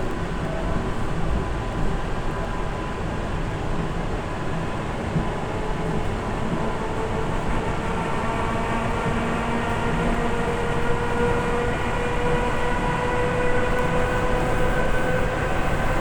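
Train running steadily on the rails, heard from aboard: a continuous low rumble with a whine that rises slowly in pitch through the second half.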